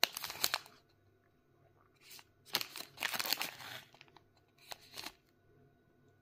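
Plastic muesli-bar wrapper crinkling as it is handled by hand, in several short bursts; the longest runs from about two to four seconds in.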